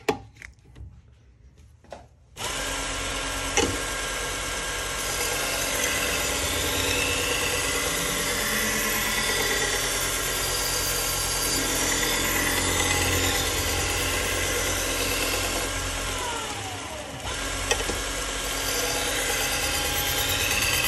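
AMK-75 belt sharpener starts abruptly a couple of seconds in and runs steadily while a knife blade is ground on a fine 3M Trizact abrasive belt. About three-quarters through, the motor briefly spins down with a falling pitch, then starts again and runs on.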